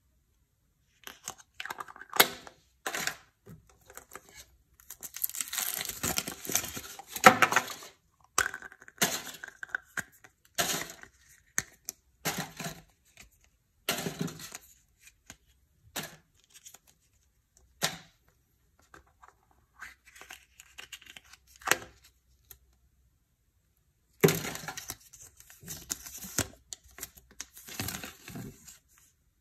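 Hands opening a Chupa Chups chocolate surprise egg: a run of crinkling, tearing and cracking from the foil wrapper and chocolate shell, with sharp clicks from the plastic toy capsule. Near the end comes a denser spell of paper rustling as the folded leaflet is opened out.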